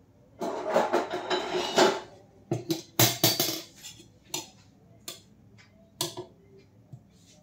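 Steel kitchen utensils clattering: a metal spoon scraping and knocking inside a steel ghee container. A dense clatter for about a second and a half, then a string of separate sharp clinks and knocks.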